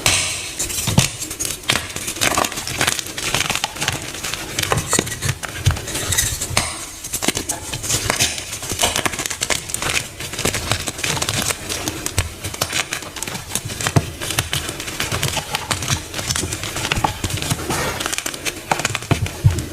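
Dyed multicolour blocks being crushed, crunching and crumbling continuously with many sharp crackles and occasional low thuds.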